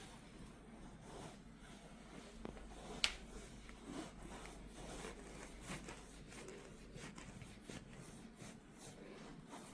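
Hands massaging a person's head and face: soft, irregular rubbing and scratching strokes of fingers on skin and hair, with one sharp click about three seconds in.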